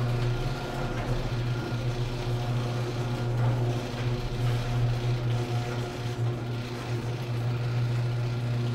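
Garage door opener motor running steadily as it raises the sectional door: a steady low hum with a grinding of the gears.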